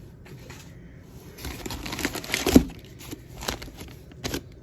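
Frozen meal packages being handled, crinkling and rustling, with the loudest bump about two and a half seconds in and a couple of sharper clicks after.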